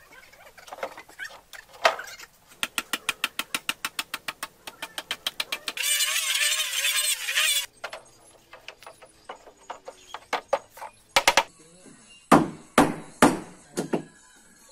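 Fast, even clicking for about three seconds, then a shrill, wavering squeal lasting nearly two seconds. Near the end come four or five sharp knocks on the wooden boat hull.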